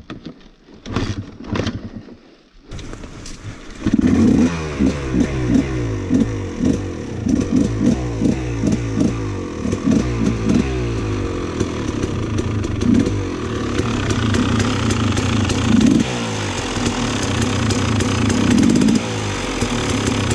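A few clicks and knocks, then about four seconds in a Husqvarna dirt bike engine runs loudly, revved up and down over and over.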